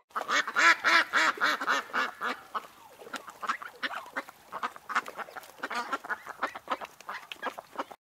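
Ducks quacking in a quick series of short calls, loudest in the first two seconds, then a quieter, denser run of calls.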